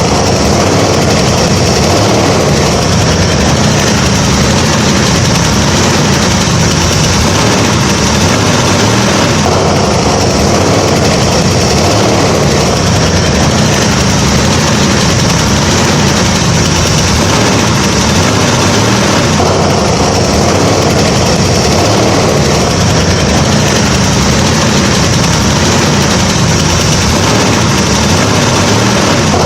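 A motor or engine running steadily and loudly without a break, its texture shifting slightly about every ten seconds.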